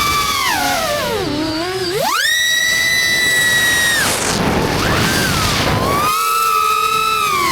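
Brushless motors of a Deep Space Seeker 35 3.5-inch FPV quadcopter whining with throttle changes, with air rushing past. The pitch sinks as throttle is cut, then jumps sharply to a high held whine about two seconds in. It drops again near four seconds and climbs back about six seconds in.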